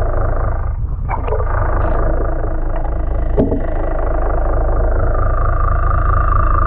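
Boat engine heard underwater as a steady low drone, with a few sharp knocks. A whine rises in pitch near the end.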